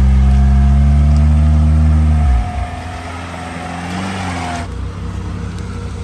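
An off-road 4x4's engine runs loud and steady under load as it crawls up a rutted, muddy forest track, then drops off sharply a little over two seconds in. A quieter engine sound continues after that, with a thin, slightly rising whine that stops about four and a half seconds in.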